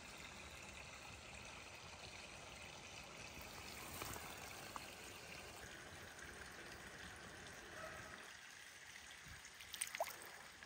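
Small trout stream flowing: a faint, steady rush of water, with a few brief clicks near the end.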